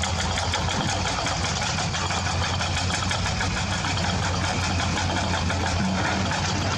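A motor running steadily with a low hum and fast, even ticking, starting and stopping abruptly.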